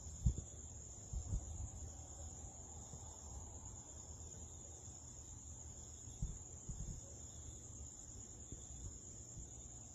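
Night insects, crickets, chirring in a steady high-pitched chorus, with a few brief low thumps about a second in and again about six seconds in.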